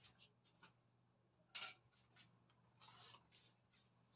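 Near silence: faint room hum with a few soft ticks and two brief soft hisses, about one and a half and three seconds in.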